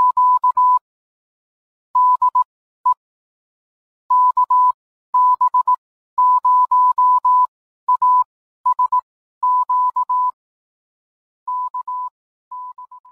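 Morse code sent as a single steady beep tone, keyed on and off in quick groups of short and long beeps with pauses between them, growing quieter near the end.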